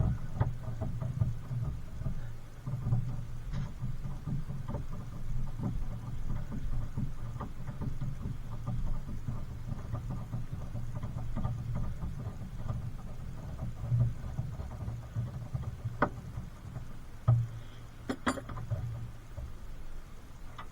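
Steady low rumble with scattered sharp metallic clicks and knocks of hand tools working on car suspension parts, a short clatter about two seconds before the end.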